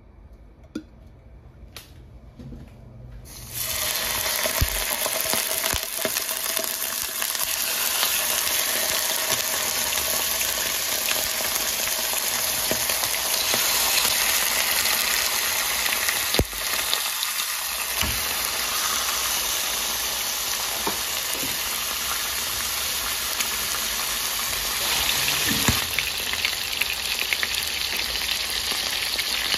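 Raw chicken thighs sizzling in hot oil in a non-stick pan: a steady frying hiss that starts suddenly about three and a half seconds in, with a few sharp clicks.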